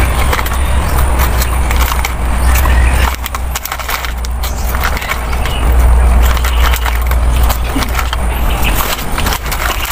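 A foil snack packet crinkling and crackling as it is handled and pulled at to open, over a steady low rumble.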